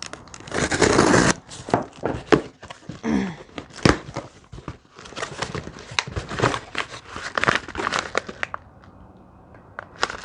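Packaging being handled during an unboxing: irregular crinkling and tearing of wrapping, with a dense rustling burst near the start and scattered clicks and knocks as parts are moved around in the box.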